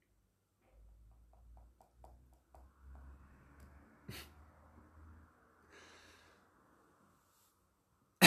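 Faint clicks and small handling noises, with one sharper click about four seconds in, then a short sniff or breath near six seconds.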